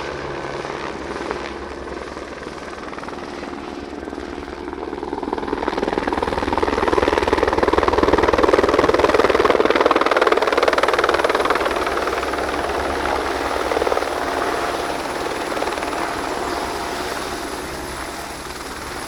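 Helicopter rotor beating. It grows louder from about five seconds in, is loudest in the middle, then slowly fades as the helicopter passes and moves off.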